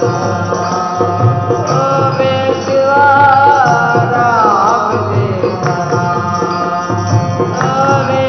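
Live devotional song music: a sliding, wavering melody over a drum beat.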